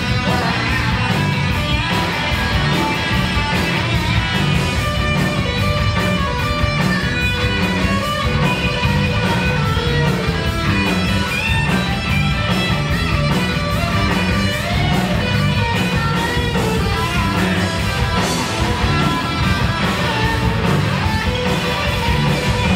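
Heavy metal band playing live: electric guitar over bass guitar and drums, with no singing heard.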